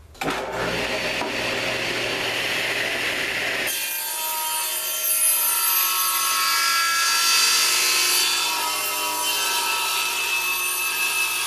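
Table saw running, then ripping a reclaimed 2x4 along its length. The saw comes up just after the start and runs free for a few seconds; from about four seconds in the blade is in the wood, and the sound turns higher and more whining for the rest of the cut.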